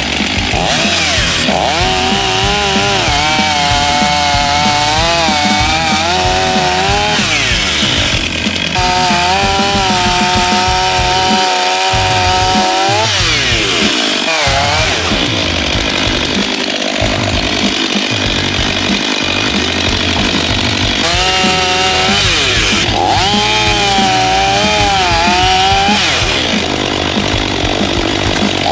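A Stihl MS 500i, a fuel-injected 80 cc two-stroke chainsaw, cutting through thin logs. Its pitch drops and recovers again and again as the chain bites into the wood and comes free. These are the brand-new saw's first warm-up cuts.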